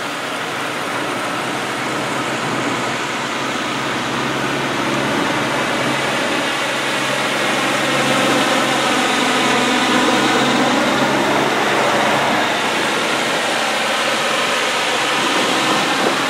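Heavy diesel tow trucks driving past one after another in a slow convoy, engines running. The sound swells as a truck passes close, about eight to twelve seconds in.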